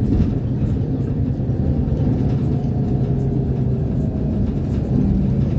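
City bus engine and tyre rumble heard from inside the passenger cabin while the bus is under way: a steady low drone.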